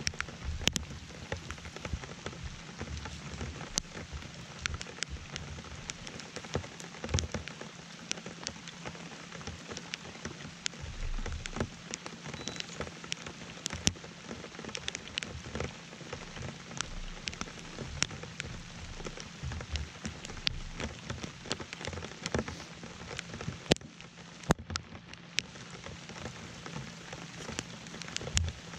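Steady rain falling on a fishing boat and the lake, with many sharp, irregular ticks of single drops striking close by.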